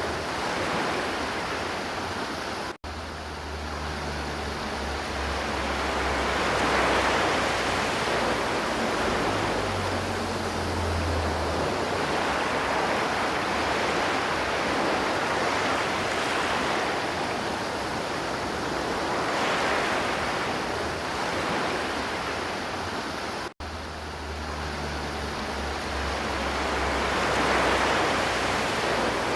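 River water flowing steadily, a rushing noise that swells and eases every few seconds. The sound drops out abruptly twice, about three seconds in and again near the end.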